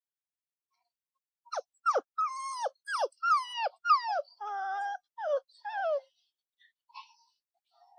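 Puppy whimpering: a quick run of about ten short, high cries, each falling in pitch, with one longer, level cry in the middle.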